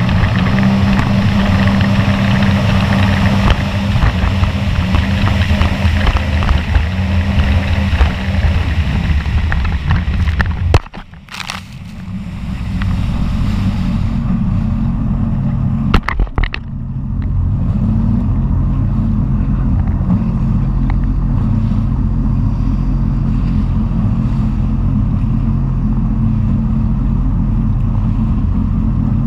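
Sea-Doo personal watercraft running at speed: an engine hum under the rush of water, spray and wind. Twice, around the middle, the sound drops away sharply for about a second. It then settles into a steadier engine hum with less water hiss.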